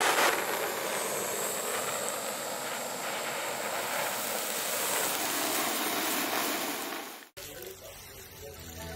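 Steady hiss of a hand-held butane torch flame lighting a sparkler, with the sparkler fizzing as it catches. The hiss cuts off suddenly about seven seconds in.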